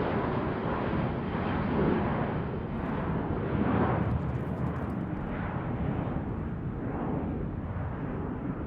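Airplane flying overhead: a steady engine noise with slow swells, easing off gradually.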